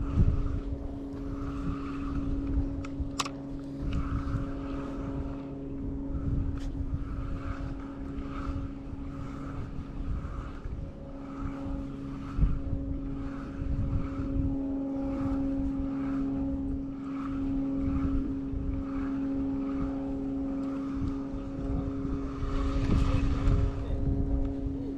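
An engine idling steadily at one unchanging pitch, with a soft pulse repeating about one and a half times a second and uneven low rumble of wind on the microphone.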